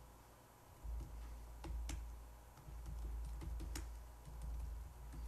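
Laptop keyboard being typed on: a handful of separate keystrokes at irregular spacing as a command is entered, over a low rumble.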